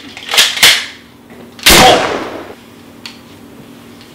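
Two quick sharp clacks, then a single loud gunshot about a second and a half in that rings out for most of a second.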